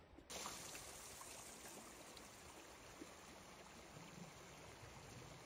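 Near silence: a faint, steady rushing hiss of outdoor background noise.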